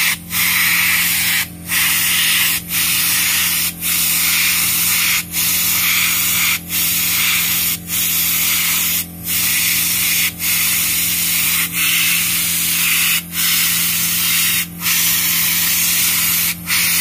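Cloth-wrapped hand pad rubbed hard over carved wood, polishing the finish. It makes a steady scratchy hiss that breaks off briefly about every second and a half as the strokes turn, over a low steady hum.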